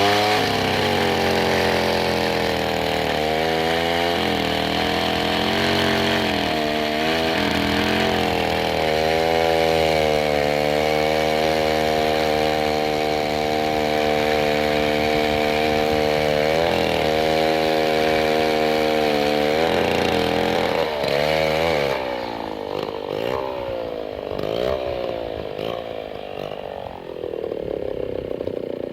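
An engine running at steady revs, its pitch dipping briefly and recovering several times as if under load. Near the end the revs wander up and down, then sweep up into a rough, rattling run.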